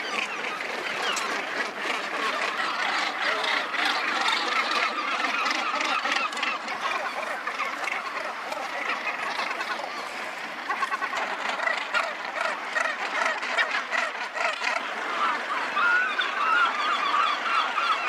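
A packed northern gannet breeding colony calling: a dense din of many birds' calls overlapping without a break.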